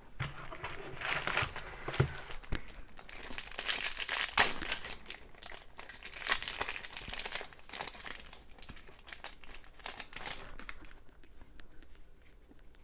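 The foil wrapper of a Topps trading-card pack being torn open and crinkled by hand, an irregular crackling that is loudest about four seconds in and dies away near the end.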